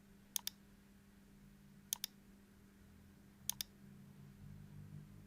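Computer mouse double-clicks: three quick pairs of sharp clicks, about a second and a half apart, over a faint steady room hum.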